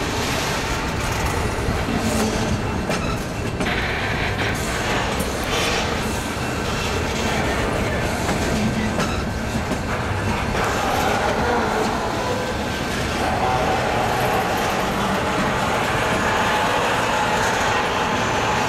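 Loaded double-stack intermodal well cars rolling past, a steady rolling noise with irregular wheel clicks and clatter.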